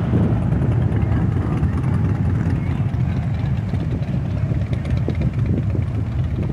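Engines of a large pack of motorcycles running together in a steady low rumble as the group rides off.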